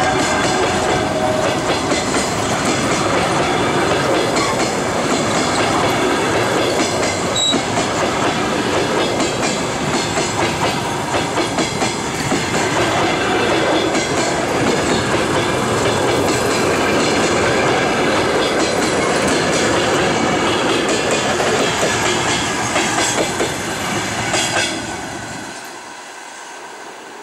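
Passenger coaches rolling past close by: a loud steady rumble of wheels on rails with runs of clickety-clack over the rail joints. The sound drops off sharply a little before the end.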